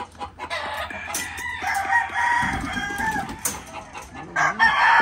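Gamecock roosters crowing: one long crow from about one to three seconds in and another starting near the end, with clucking between them and a few sharp clicks.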